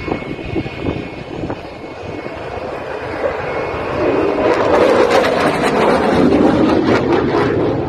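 Eurofighter Typhoon fighter jet flying past, its twin EJ200 turbofans making a broad rushing jet noise that swells about four seconds in and stays loud.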